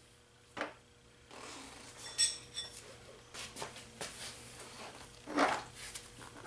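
Metal handling noises as the front axle of a Honda CT70 is worked out of the wheel with a wrench on it: a click, a short ringing metal clink about two seconds in, light rustling, and a louder scrape near the end.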